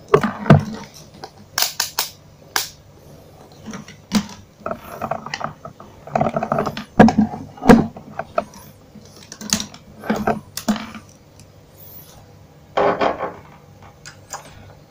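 Irregular clicks, clacks and short scraping rattles as a handheld digital multimeter and its test leads are picked up and set in place, over a low steady hum.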